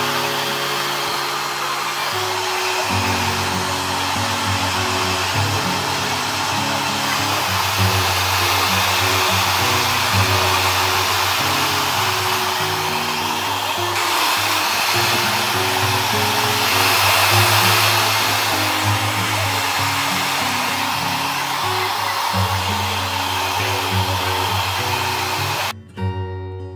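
Steady rush of air from an electric blower, swelling and easing a little in strength, over background music with a bass line. The blowing stops abruptly near the end.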